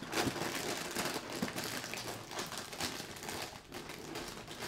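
Cereal box being opened by hand, its packaging crinkling and rustling with many small crackles.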